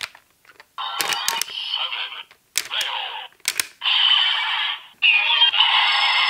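Ultraman Z transformation-device toy (DX Ultra Z Riser) playing recorded voice lines and sound effects through its small, thin-sounding speaker in several short bursts. Sharp plastic clicks come between the bursts as medals are loaded and triggered.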